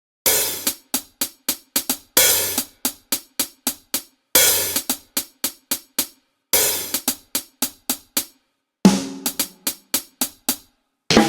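Drum intro to a song: a cymbal crash opens each bar of about two seconds, followed by quick hi-hat and snare hits, repeated four times. Near the end a bass note comes in under the drums, then the beat stops briefly.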